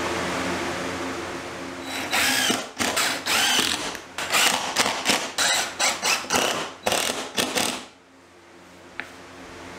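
Cordless drill driving screws into drywall in a run of short bursts, starting about two seconds in and stopping about a second and a half before the end, over a steady background hum.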